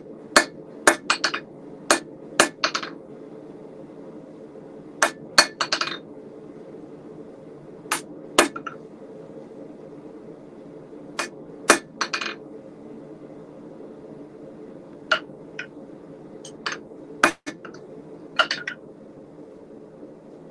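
Rounding hammer striking a red-hot steel hot cut chisel on an anvil, each blow a sharp ringing metallic clink. A quick run of about half a dozen blows comes first, then scattered single strikes and a few lighter clinks toward the end, as the chisel is dressed up.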